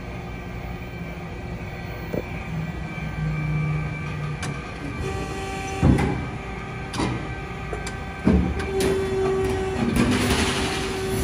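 RAS 74.30 CNC sheet-metal folder running a folding cycle: a steady machine hum broken by a few sharp clunks, the loudest about six seconds in, then a steady whine through the last couple of seconds as the folding beam swings up.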